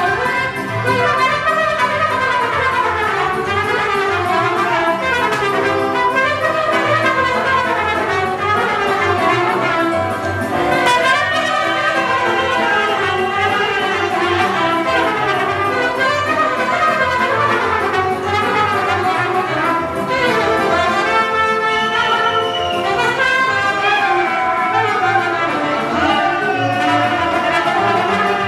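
Trumpet playing a fast, ornamented Romanian folk dance tune for a circle dance, over a wedding band's steady backing beat.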